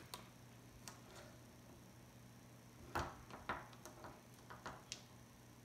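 Quiet room tone with a steady low hum and a handful of faint clicks and taps, the loudest about three seconds in and several more soon after.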